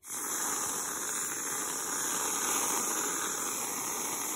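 Aerosol can of whipped cream spraying, a steady hiss that starts suddenly and holds evenly as the cream is piped onto the cup.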